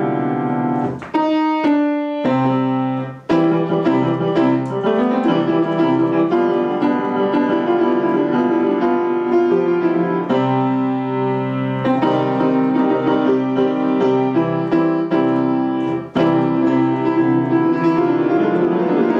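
Solo acoustic piano played with both hands: a few single ringing notes about a second in, then steady, full chords and runs for the rest, with a brief break a few seconds before the end.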